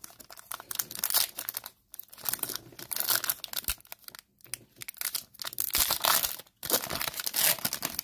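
Foil trading-card pack wrapper crinkling and tearing as it is handled and opened by hand, in bursts with a few brief pauses.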